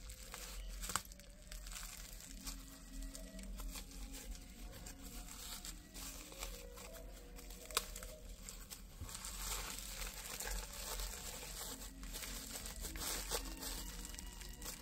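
Bubble wrap and a plastic sleeve crinkling and rustling as a package is unwrapped by hand, with a few sharper crackles.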